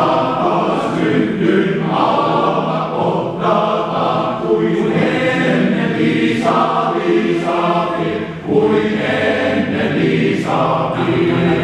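Male voice choir singing together, in sung phrases of about two seconds with short breaks between them.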